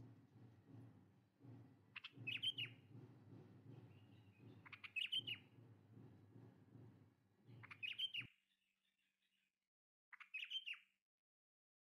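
A bird chirping: short, falling twittering phrases repeated about every two and a half seconds. Under them runs a low background rumble that cuts off suddenly about eight seconds in.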